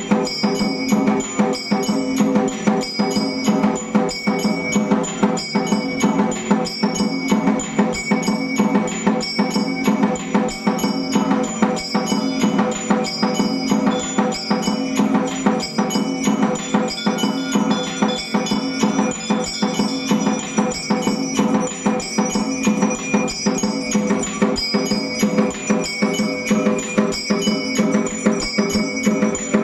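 Electrically driven temple percussion machine playing: mechanical strikers beat bells and a percussion instrument in a steady, unbroken rhythm, with the bells ringing on between strikes.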